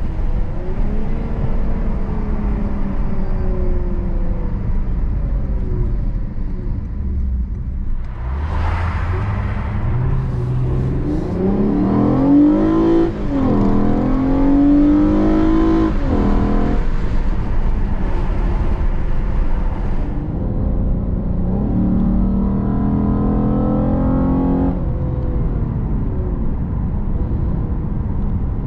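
Lexus RC 350 F Sport's V6 breathing through a Takeda cold air intake, heard from inside the cabin with the window down. The engine and intake note rise twice under acceleration: a long pull from about eight seconds in, with a gear change partway through, and a shorter one later, between stretches of steady cruising.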